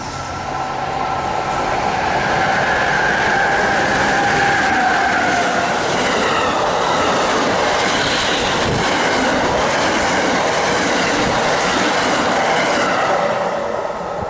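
Amtrak train of Amfleet coaches passing close at speed on electrified main line: a rushing rail roar that builds over the first two seconds as it approaches and stays loud as the coaches go by. A high tone slides slowly down in pitch as the head end passes.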